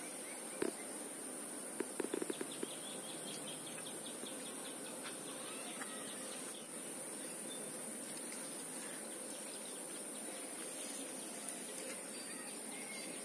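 Outdoor rural ambience dominated by a steady, high insect buzz, with a few sharp clicks in a short cluster about two seconds in.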